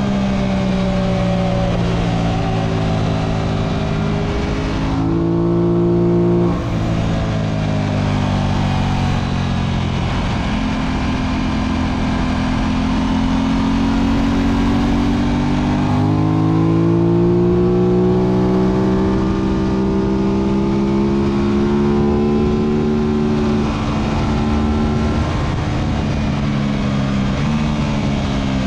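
Aprilia RS660's parallel-twin engine at track speed, heard from onboard with wind rush. The engine note rises and falls with the throttle: it drops lower through a corner around the middle, climbs as the bike accelerates out, and falls again near the end.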